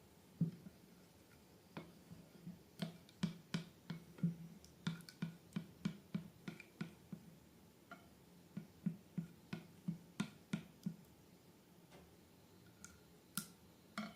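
Slime being squeezed and handled, giving a run of soft, irregular sticky clicks and pops, thickest in the middle and with a couple more near the end.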